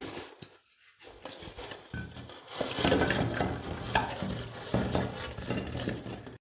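Crisp fried shakarpara pieces poured from a metal tray onto a ceramic platter: a few light clicks at first, then a dense rattling clatter of the hard pieces tumbling and clinking on the plate from about two and a half seconds in.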